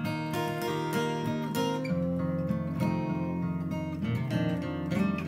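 Two acoustic guitars playing an instrumental passage, strummed chords with picked notes, the low notes growing fuller about two seconds in.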